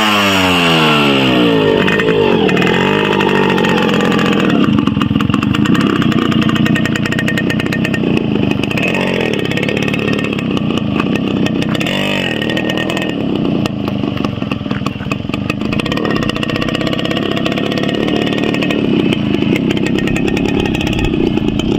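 Yamaha RX two-stroke motorcycle engine revved in the first seconds, its pitch sweeping up and down, then running steadily with small throttle changes as the bike is ridden slowly.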